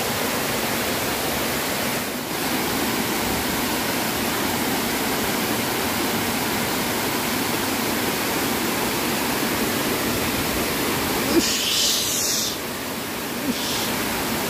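Water pouring over a stone weir into a river pool, a steady rushing. About eleven seconds in, a brief scratchy hiss rises above it for about a second.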